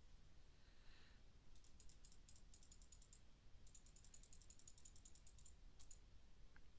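Faint, rapid clicking of a computer mouse button, several clicks a second, in two runs with a short break between them.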